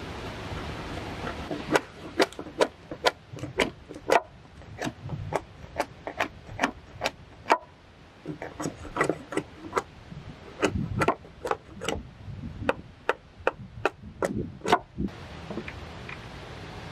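Machete blade striking into the end of a wooden plank again and again, splitting it into thin boards: sharp knocks about two or three a second, pausing briefly midway and stopping near the end. A steady rushing noise runs underneath.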